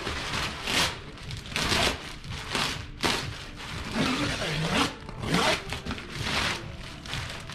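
Plastic packing wrap around a cardboard-packed sofa bed rustling and crinkling in short repeated bursts, about one a second, as it is slit with a utility knife and pulled away by hand.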